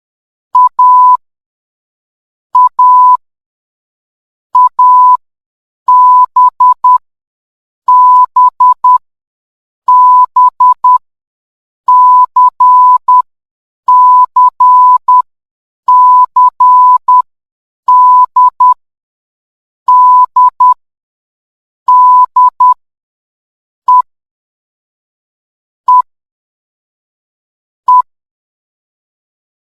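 Morse code sent as a steady pitched beep keyed on and off in dots and dashes, one short group of beeps about every two seconds; the last three groups are each a single short beep.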